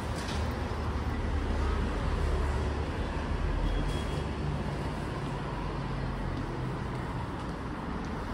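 Street traffic: a motor vehicle's engine running with tyre noise, swelling a little about two to four seconds in.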